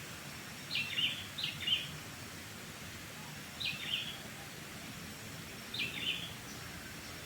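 A bird calling four times in short, high calls, the first two close together and the others a couple of seconds apart, over a steady background hiss.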